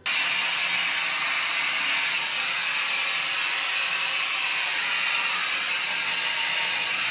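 Hair dryer blowing: a steady, even rush of air.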